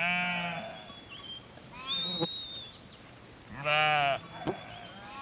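Sheep and goats of a moving flock bleating: three calls, the first at the very start, one about two seconds in, and the longest and loudest about four seconds in.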